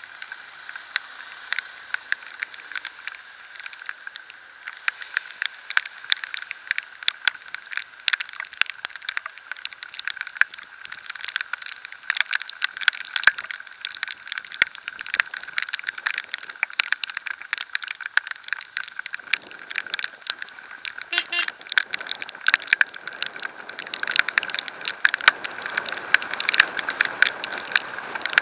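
Raindrops hitting a camera on a bicycle moving through rain: a rapid, irregular patter of sharp ticks over steady road and wind noise, with a deeper rumble joining about two-thirds of the way in.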